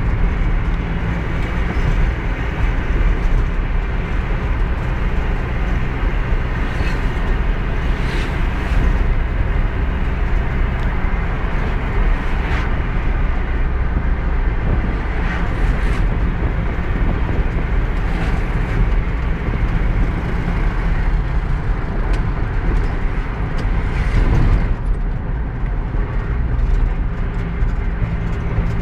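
Steady engine and road noise inside the cabin of a moving car: a constant low rumble with a few short knocks along the way.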